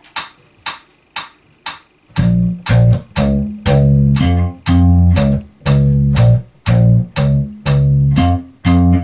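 Four short clicks about half a second apart count in, then a Sandberg MarloweDK electric bass is played double-thumb slap style: quick thumb down-and-up strokes beating out a repeating minor-triad pattern of punchy low notes in a steady rhythm, at half the feel of the tempo.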